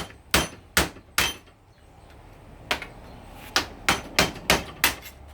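Hammer driving a woodworking chisel to cut open a scrap hose's metal end. There are about ten sharp metallic blows: four evenly spaced ones, a pause of about a second and a half, then a quicker run.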